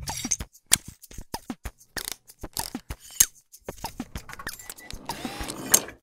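Sound effects for an animated title logo: an irregular run of sharp mechanical clicks and knocks, ratchet-like, some followed by short falling pings. They stop abruptly just before the end.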